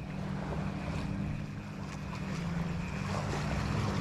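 A motorboat engine running at a steady pitch on the water, over a hiss of wind and water.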